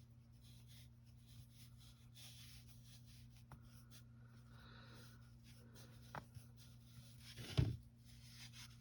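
Faint scratching and rustling of acrylic yarn being brushed and handled, over a steady low electrical hum. Two sharp clicks come partway through, and a louder thump near the end.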